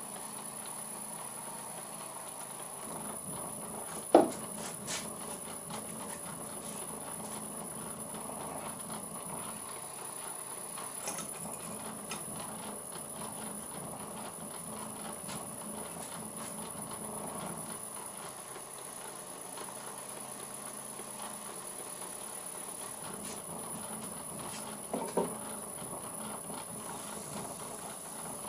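Old Karger metal lathe running steadily under flat-belt drive from its electric motor, a continuous mechanical hum with belt vibration that the owner puts down mainly to how the motor is mounted. There is a sharp knock about four seconds in and a couple of light knocks near the end.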